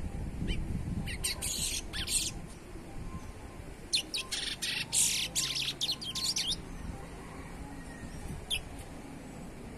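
Juvenile chestnut-bellied seed-finch (curió), still in brown plumage, singing two phrases of quick, high notes, one about a second in and one around four seconds in, then a single short note near the end, over a steady low background rumble.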